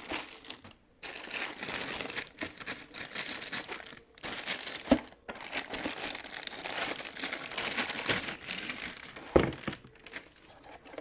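Packaging crinkling and rustling as it is handled and unwrapped, in stop-start stretches, with two sharp clicks about five and nine seconds in.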